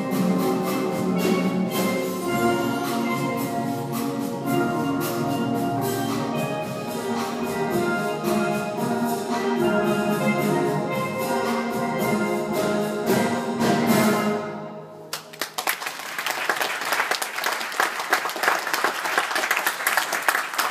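Steel pan ensemble playing, the piece ending about three-quarters of the way through, followed by audience applause.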